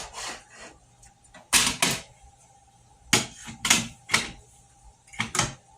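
Sharp, hard clacks and knocks, about seven in small groups, as an accessory part is fitted and snapped into its holder on a table saw.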